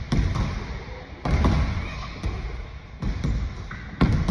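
Basketball bouncing on a hardwood gym floor, a few irregularly spaced thuds that echo briefly in the large hall.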